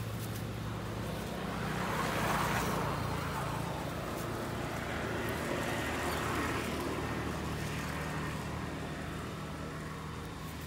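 Passing traffic: a vehicle swells and fades about two seconds in, and another around six seconds, over a steady low engine hum.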